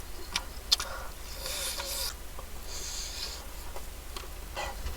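Eating noises: a couple of sharp clicks early on, then short soft rustles as food is handled and chewed.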